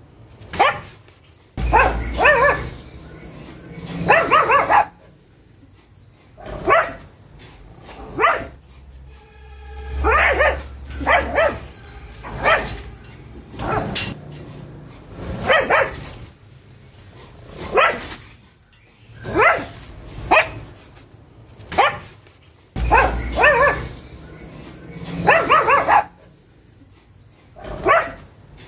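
Pug barking over and over, single barks and quick pairs or clusters of barks every second or two.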